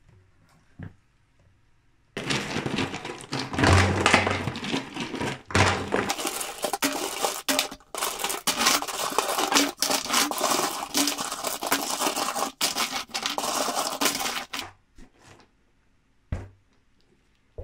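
Stones from a plastic tub clattering into a PVC sewer pipe, rattling against the pipe walls and each other in a dense run of knocks. It starts about two seconds in and stops a couple of seconds before the end.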